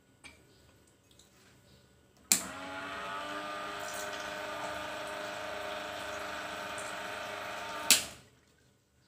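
Electric dispenser pump on a gallon drinking-water jug switching on with a click about two seconds in. It runs with a steady hum while water pours into a cup for about five and a half seconds, then switches off with a louder click.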